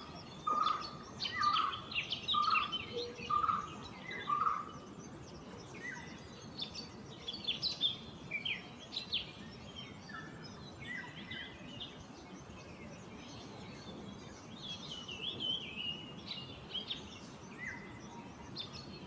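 Birds calling in tree canopy: a low note repeated about twice a second for the first few seconds, with many short, high chirps and whistles from several birds throughout.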